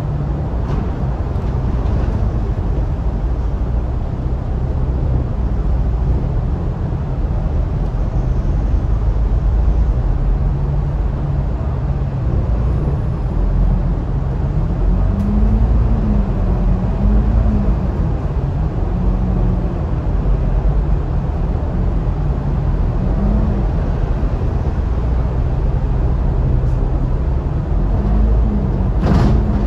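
Diesel engine and drivetrain of an Alexander Dennis Enviro500 MK2 double-decker bus, heard inside the lower deck while the bus moves at low speed. The drone rises and falls in pitch as the revs change. A short hiss comes near the end.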